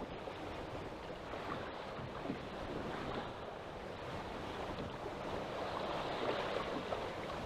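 Rough, choppy sea: waves washing and splashing steadily around the angler's boat, mixed with wind buffeting the microphone.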